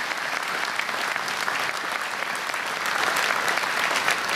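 Audience applauding: many hands clapping in a large hall, steady throughout.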